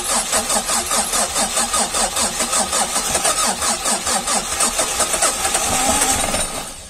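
Starter motor cranking a cold Mazda 626 four-cylinder engine in an even rhythm of about four to five beats a second without it catching, then stopping near the end. The engine is flooded after repeated attempts in −28 °C frost.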